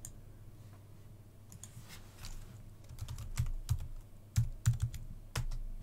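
Computer keyboard keys tapped as a filename is typed, with mouse clicks: scattered sharp keystrokes in short runs about three seconds in and around four and a half seconds, and one hard stroke near the end.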